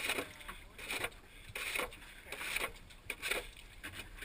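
Small waves slapping and splashing against the hull of a small sailing dinghy, in irregular splashes about two a second.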